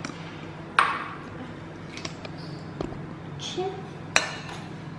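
An egg tapped against the rim of a glass measuring jug to crack it: sharp clicks with a short glassy ring, two louder ones about a second in and near the end, with fainter taps between.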